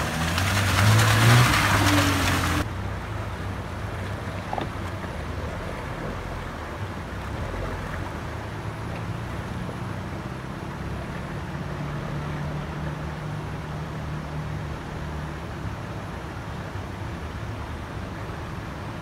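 Chevrolet Niva driving close by through a shallow rocky stream, its engine running under water splashing and rushing loudly. About two and a half seconds in this cuts off suddenly to a quieter, steady engine rumble as a Niva fords a river at a distance.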